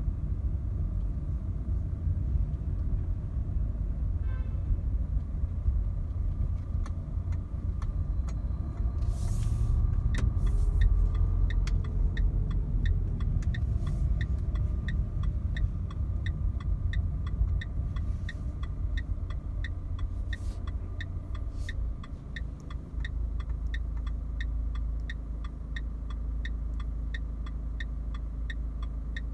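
In-cabin sound of a Renault Clio IV's 1.5 dCi four-cylinder diesel and tyres rumbling low while driving, settling to a steadier idle near the end as the car stands still. From about a third of the way in, the turn indicator ticks evenly, about twice a second.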